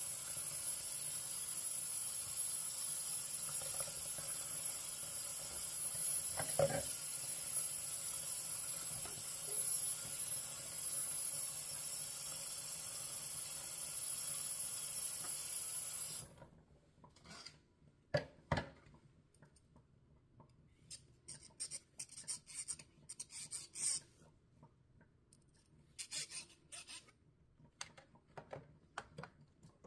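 Soapy hands and a sponge scrubbing dishes and a utensil over a basin of suds: scattered rubbing and scraping. A steady hiss fills the first half and cuts off suddenly, after which there are two light knocks of dishware.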